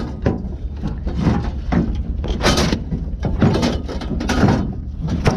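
Scrap metal clattering and scraping in irregular bangs and drags, over a steady low hum.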